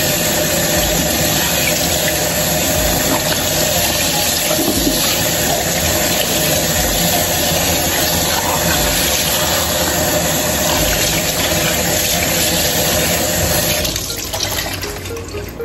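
Kitchen faucet running in a steady stream onto a raw whole chicken being rinsed by hand in the sink, the water splashing off the bird. The water stops near the end.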